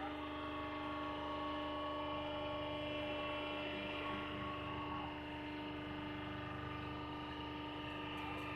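Scrap-metal and can press machine's electric motor running with a steady hum, several even tones held without change.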